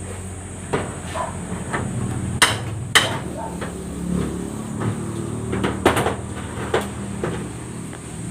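Hammer blows at an irregular pace during carpentry work, the two sharpest strikes close together about two and a half seconds in, with more around six seconds, over a steady low hum.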